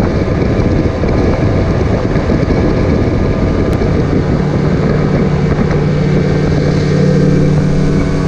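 Outboard motor running at speed on a planing boat, with the rush of the wake and wind buffeting the microphone. About halfway through a steady engine hum comes up more strongly.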